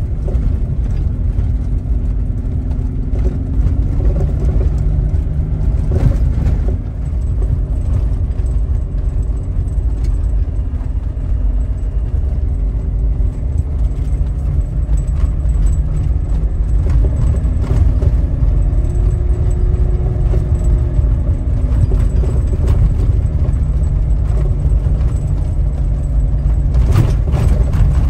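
Jeep Rubicon driving on a gravel road, heard from inside the cab: a steady low rumble of tyres on gravel and engine, its note rising and falling a little, with loose rattles and clinks from the interior.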